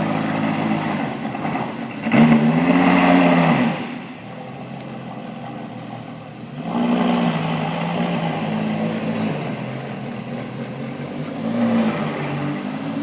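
Lamborghini Gallardo LP560-4's V10 engine running at low revs while the car reverses, its pitch rising and falling back with brief throttle blips: a loud one about two seconds in, a smaller one around seven seconds, and another near the end.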